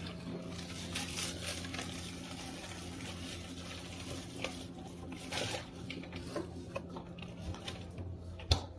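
Faint rustling and light knocks of groceries being handled, over a low steady hum.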